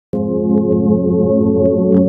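Organ music: a loud, sustained chord that cuts in suddenly out of dead silence just after the start and holds steady, with a few faint clicks above it.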